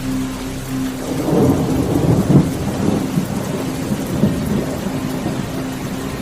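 Steady rain heard from a car driving on a motorway, over a low steady hum. About a second in, a deep rumble swells for several seconds, loudest near the middle, then fades.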